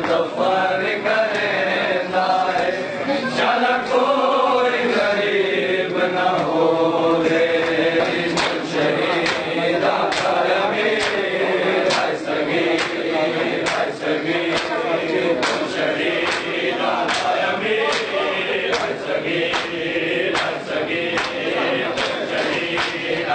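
Men chanting a noha, the Muharram lament, in chorus. From about eight seconds in, a steady beat of sharp slaps, about two a second, joins the chant: the hand-on-chest strikes of matam.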